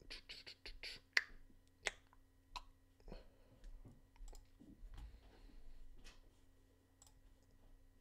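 Faint scattered sharp clicks and taps: a quick run of them in the first second or so, then sparser ones with a soft rustle around the middle, over a faint steady electrical hum.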